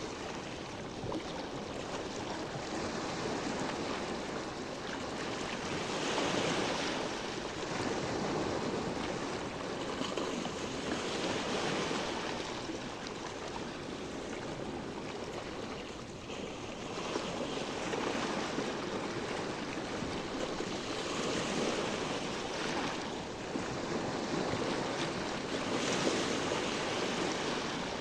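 Sea waves: a continuous rush of water that swells and eases every few seconds.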